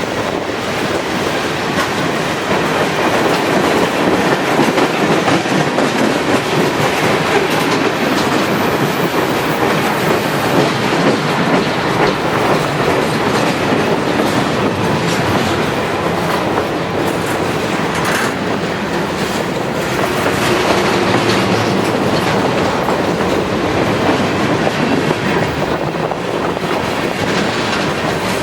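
Freight train rolling steadily past, its wheels clattering over the rail joints in a continuous loud rumble.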